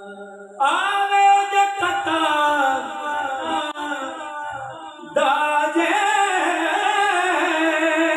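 A man singing a Punjabi devotional naat in two long, drawn-out phrases with wavering held notes, the second starting about five seconds in.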